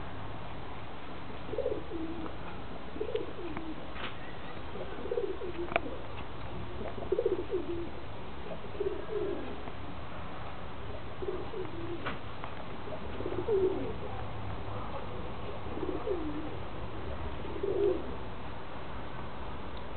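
Feral pigeons cooing: a series of short, low coos that drop in pitch, one every second or two, over a steady low hum, with a few sharp clicks.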